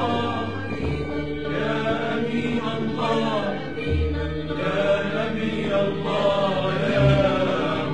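Arabic devotional chant in praise of the Prophet Muhammad, sung over steady low held notes.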